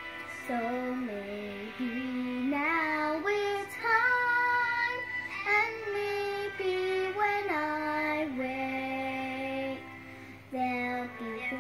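A young girl singing a slow tune, holding long notes and sliding between them.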